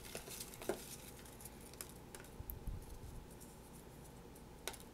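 Faint rustling of folded paper slips being handled in a plastic container as one is picked out, with a few light clicks, the sharpest near the end.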